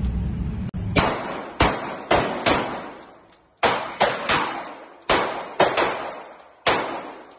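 Handgun shots fired in quick strings inside an indoor shooting range: about eleven sharp reports, in groups of four, three, three and then one, each followed by a short echoing tail off the range walls.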